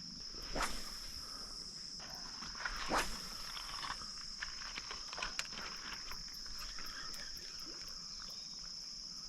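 Insects trilling steadily in one unbroken high-pitched drone, with a few sharp clicks and rustles, the clearest about half a second and three seconds in.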